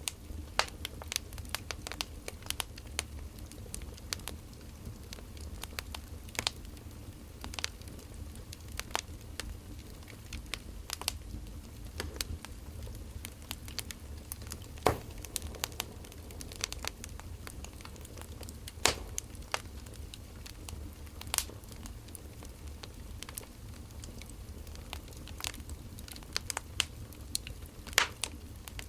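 Wood fire crackling: irregular sharp snaps and pops, a few louder than the rest, over a steady low rumble.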